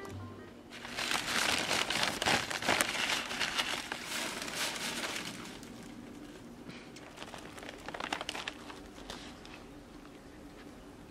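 White paper wrapper crinkling and rustling as it is handled around a sandwich. The crinkling starts about a second in and is loudest for the next few seconds, comes back more weakly around eight seconds, then dies away.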